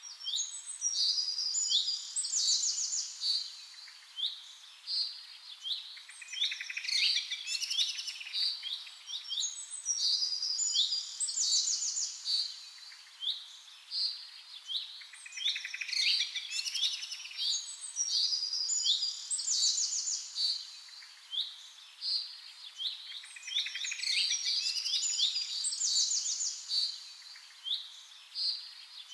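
A chorus of small songbirds chirping and trilling, with many high calls overlapping and swelling in waves every few seconds.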